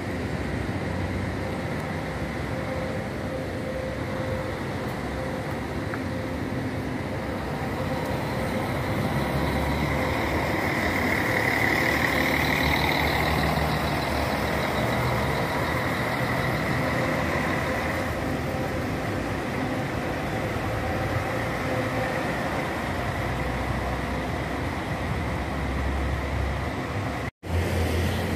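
Marcopolo Paradiso G8 intercity coach running as it drives in, its engine and tyres loudest as it passes close about halfway through. The sound cuts out abruptly near the end.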